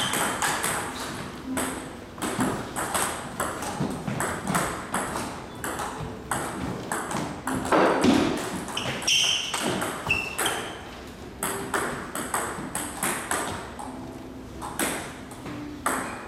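Table tennis balls being struck by paddles and bouncing on the table in play, a long run of sharp, irregular clicks. A couple of short high squeaks come midway.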